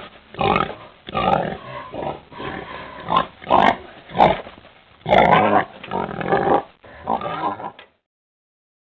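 Pig grunting and oinking in a quick, irregular run of short calls, stopping about eight seconds in.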